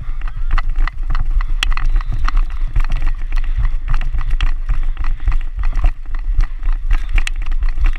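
Steady low rumble with many irregular sharp clicks and knocks, several a second: wind and knocking on a helmet-mounted action camera as its wearer moves.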